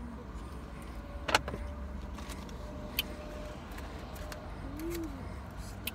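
Steady low rumble of a car, heard from inside the cabin, with a few sharp clicks and taps, the loudest about a second and a half in.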